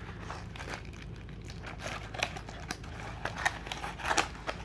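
Packaging being handled and rummaged through: crinkling and rustling in irregular short bursts, loudest a little after two seconds in and again around four seconds in.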